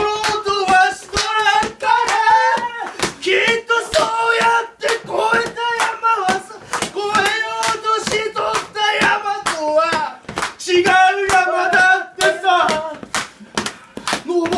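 Men singing a Japanese pop song together in a small room, with hand claps keeping a steady beat under the voices.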